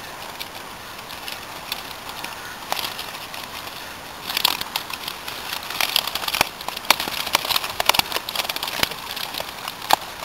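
Wet keepnet holding a catch of carp and silver fish being pulled open and handled: fast crackling and rustling of the net with sharp clicks, starting about four seconds in and growing busier.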